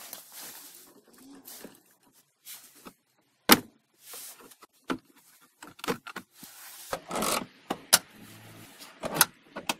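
Scattered sharp clicks and knocks with some rustling as plastic car interior trim is unscrewed and handled with a screwdriver. The loudest click comes a few seconds in, and a cluster of knocks follows near the end.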